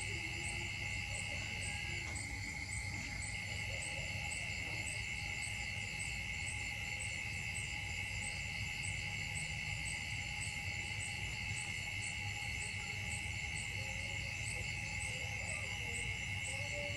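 Insect chorus: a steady high-pitched drone with a regular pulsing chirp above it.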